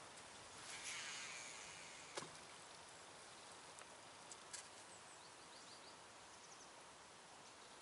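Near silence: faint outdoor background noise, broken by a couple of soft clicks and, about five seconds in, a few faint high chirps.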